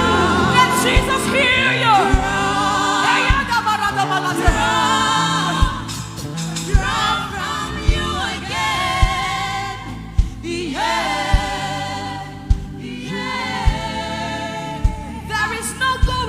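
Live gospel worship music: sung vocals with vibrato over sustained keyboard chords and a regular drum beat.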